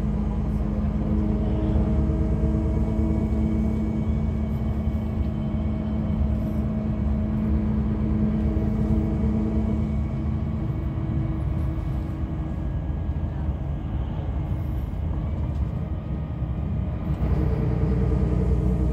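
Cabin noise inside a 2014 Temsa Safari HD coach on the move: a steady engine drone over low road and tyre rumble. The engine's hum falls away about halfway through and picks up again near the end.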